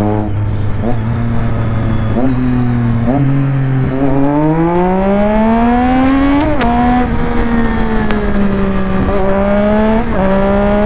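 Triumph Street Triple 675's inline-three engine, fitted with an SC-Project aftermarket exhaust, pulling under throttle while riding. The revs climb steadily, drop sharply about six and a half seconds in at a gear change, hold level, then rise again near the end.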